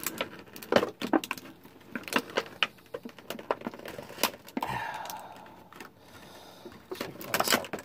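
Irregular sharp plastic clicks and rattles as Bakugan toy balls are pried out of their plastic packaging, with a short scrape a little past halfway and a quick cluster of clicks near the end.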